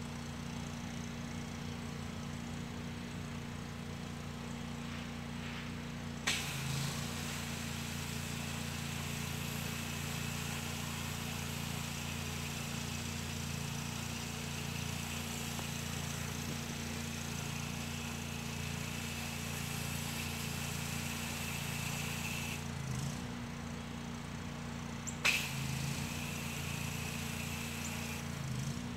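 Pressure washer running with a steady hum, its high-pressure spray starting suddenly with a loud hiss about six seconds in as the jet is played over vinyl siding. The spray cuts off for a couple of seconds near the end, then starts again briefly.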